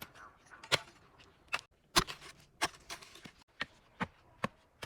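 A series of sharp taps at irregular spacing, roughly two a second.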